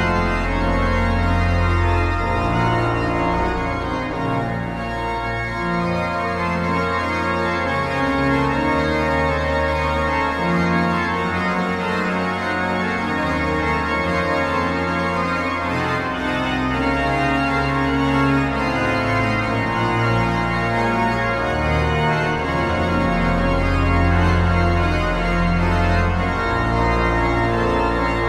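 Pipe organ music: slow sustained chords over deep pedal bass notes that change every second or two.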